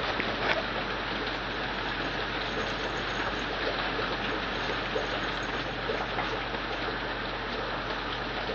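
Steady hiss of background noise, with a few faint soft clicks.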